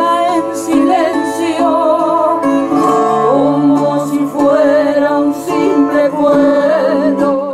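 Film soundtrack song: a woman singing a slow melody with vibrato over a held instrumental accompaniment.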